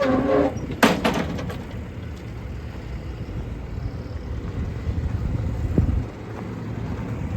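Tommy Gate lift gate being lowered on a van's tail: a clunk about a second in, then a steady low hum of the gate's power unit that falls away about six seconds in.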